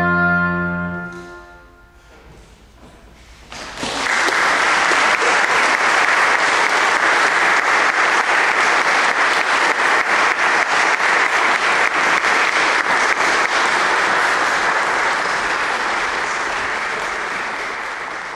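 The final held chord of oboe and piano ends about a second in and rings away, and after a short hush an audience breaks into steady applause that carries on and tapers slightly toward the end.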